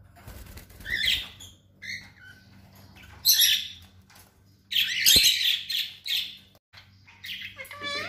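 Pet parrots giving short, shrill squawks and chirps, four or five calls in a row, with a flutter of wings about a second in.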